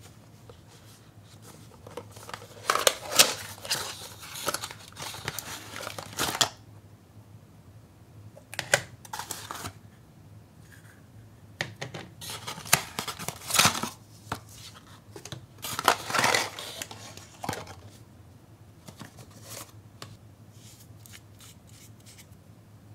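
A cardboard kit box being opened and its plastic cups, bottles and packets handled: several bursts of rustling, scraping and crinkling, with light taps and clicks in the quieter stretches.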